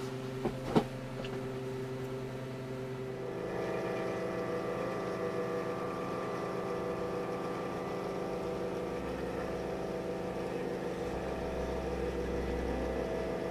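Stepper motor of a model-railway turntable drive running, turning the turntable through toothed timing belts: a steady whine made of several held tones. About three seconds in it shifts to a higher, fuller and louder tone. Two light clicks come just under a second in.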